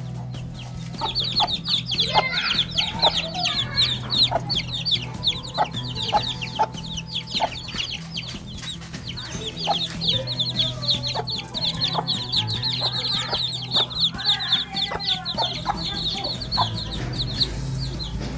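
Aseel chickens clucking, over a dense, continuous stream of rapid high-pitched peeping that stops shortly before the end.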